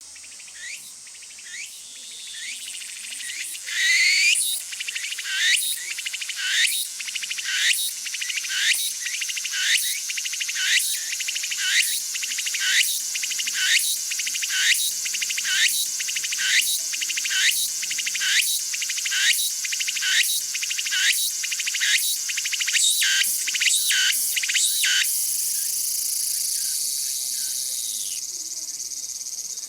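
A tsukutsukuboushi cicada (Meimuna opalifera) singing its full song. It builds up over the first few seconds, then repeats its rising "tsuku-tsuku-boushi" phrase over and over, somewhat faster than one a second. The phrases crowd together near the end, and the song closes on a steady buzz that fades out.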